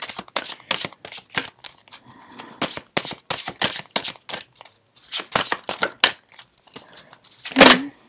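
A deck of tarot cards being shuffled and handled: a quick, irregular run of crisp card snaps and flicks, with one louder short sound near the end.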